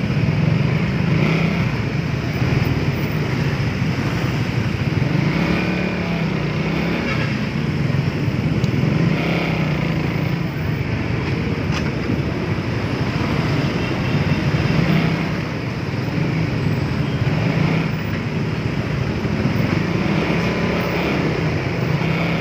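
Suzuki Raider 150 Fi motorcycle engine running while being ridden on the road, its note rising and falling with the throttle. Road and traffic noise runs along with it.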